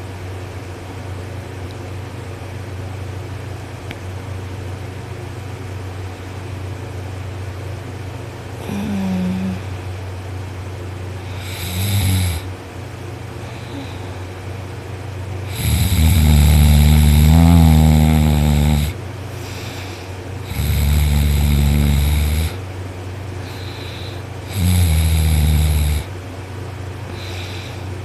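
A man asleep on his back snoring loudly: after about eight seconds with no snore, five snores come a few seconds apart. The first two are short and fainter, and the third is the longest and loudest at about three seconds.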